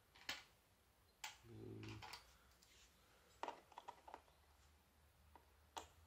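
Faint, scattered clicks and taps from a small screwdriver being set against a screw in a laptop's base cover. A brief low hum comes about a second and a half in.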